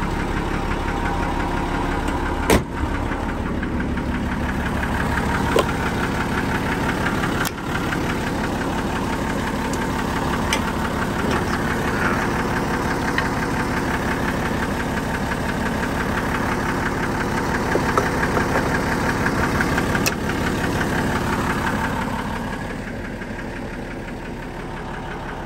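Mercedes-Benz Unimog 416's six-cylinder diesel engine idling steadily. There are two sharp clicks, about two and a half and seven and a half seconds in, and the engine grows somewhat quieter near the end.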